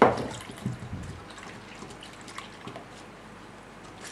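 A sharp knock at the start, then a plastic spatula stirring milk with yeast and sugar in a stainless steel pot: faint liquid swishing and scattered light clicks against the metal.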